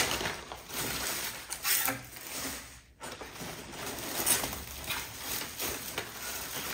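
Crumpled brown kraft paper and honeycomb paper wrap crinkling and rustling as it is pulled out of a cardboard box, with a plastic bag handled among it. There is a brief break about three seconds in.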